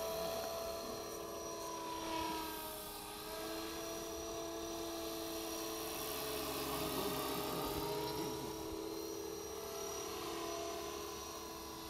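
Align T-Rex 500 electric RC helicopter in flight: a steady whine of motor and rotor, its pitch dipping slightly about three seconds in as the helicopter turns.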